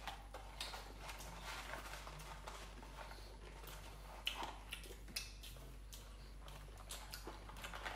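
A person chewing French fries close to the microphone: a run of soft mouth smacks and short clicks, with two louder clicks about four and five seconds in.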